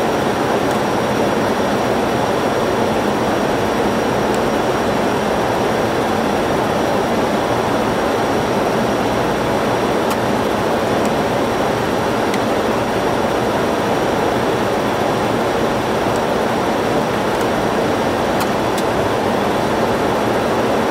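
Boeing 737 flight deck on approach: a steady rush of airflow and engine noise, even throughout, with a faint high steady whine above it.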